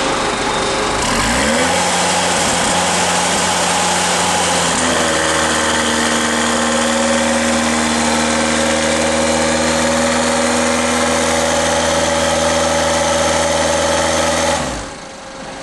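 Toyota forklift engine starting up about a second and a half in, then running steadily, its pitch stepping up about five seconds in, and shutting off near the end.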